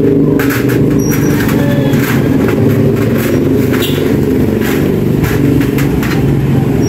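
An engine running steadily at a constant pitch, with scattered light metallic clicks and knocks from hand tools on a shock absorber in a spring compressor.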